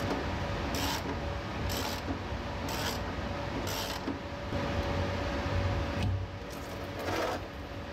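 Ratchet wrench being worked in short strokes about once a second, over a steady hum in the workshop.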